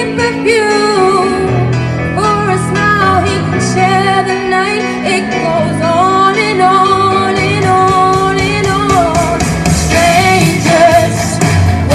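A female vocalist singing an 80s-style rock song with instrumental backing that includes guitar.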